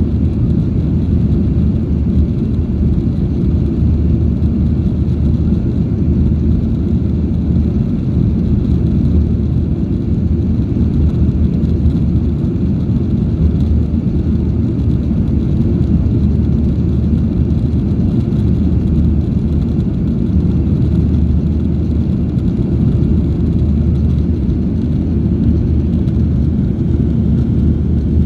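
Steady low rumble of a jet airliner's engines and rushing air, heard from inside the passenger cabin during the climb after takeoff.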